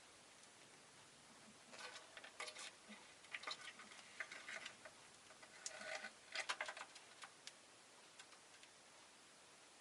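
Rosy-faced lovebird making a run of short, soft clicks and chirps, starting about two seconds in and stopping about seven and a half seconds in.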